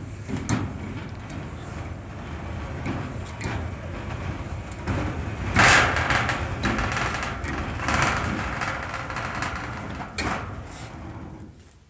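Folding steel lift gate of corrugated sheet on a profile-tube frame being raised by cables over pulleys: a steady metallic rattle and scrape of the panels and cable drum, with a louder clatter about halfway through and a sharp knock near the end.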